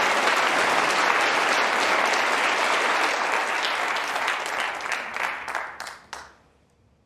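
Audience applauding, thinning to scattered claps about five seconds in and stopping just after six seconds.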